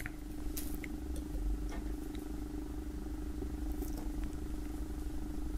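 Faint, scattered crinkles and scrapes of a knife blade cutting into the tightly sealed plastic shrink-wrap on a roll of poker chips, over a steady low hum.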